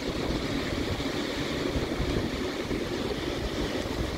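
Steady rush of river water flowing below a dam's floodgates, with gusty wind buffeting the microphone.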